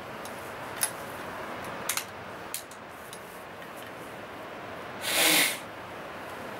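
A muzzle-loading rifle being handled and reloaded between shots: a few light clicks, then a loud hiss lasting about half a second near the end.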